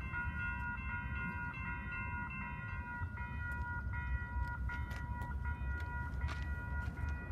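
Railroad grade-crossing warning bell ringing steadily while the gates are down, a repeating bright ringing tone, over a low rumble. A few light clicks come in the second half.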